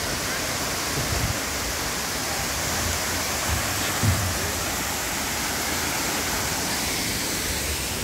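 Steady rush of a waterfall, with a couple of brief low thumps about a second and four seconds in.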